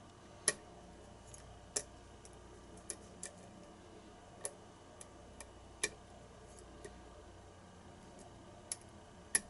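About a dozen light metallic clicks and ticks at uneven intervals, loudest about half a second in and near the middle, from a lock pick and tension wrench working the pins of an ASSA Abloy cylinder challenge lock. The picker is trying to regain a false set on the pins.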